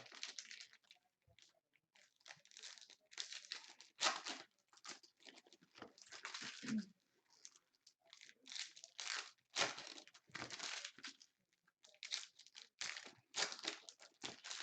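Plastic wrappers of Prizm trading-card packs being torn open and crinkled, in irregular rustling bursts with short pauses between them.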